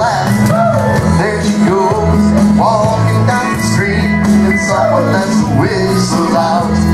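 Country-style square dance music with a voice singing over it, a caller's singing call for the dancers.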